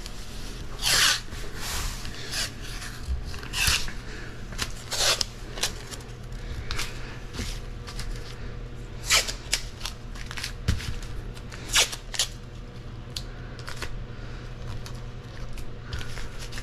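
Masking tape being pulled off the roll and laid down as a border along the edge of masking plastic or paper: a run of irregular short rips and rustles, over a steady low hum.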